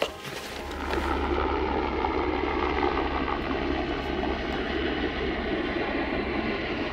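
Helicopter flying overhead: a steady rotor and engine drone with a deep rumble that comes in about a second in and holds at an even level.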